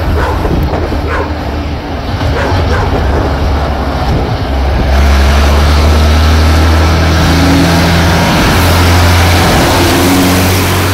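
Ursus tractor's diesel engine running as the tractor approaches pulling a manure spreader, its steady low drone growing louder about halfway through as it comes close.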